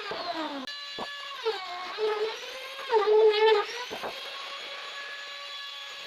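A small, high-speed electric motor whining steadily, its pitch sagging and recovering several times, with two sharp knocks, one about a second in and one about four seconds in.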